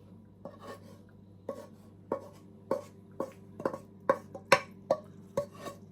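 A utensil repeatedly knocking and scraping against a wok while soup is scooped out into bowls. The knocks come roughly twice a second, and the loudest falls about four and a half seconds in.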